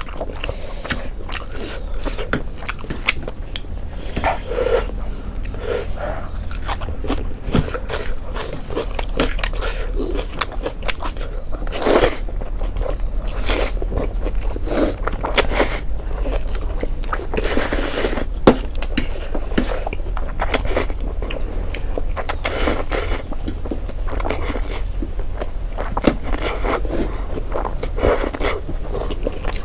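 Close-miked eating sounds: chewing and biting of jajangmyeon black bean noodles and side dishes, with many short wet clicks and smacks and some scraping.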